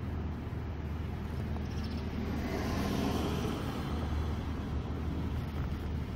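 Car cabin noise heard from behind the windshield: a steady low engine and road hum, swelling for a second or two near the middle as traffic moves.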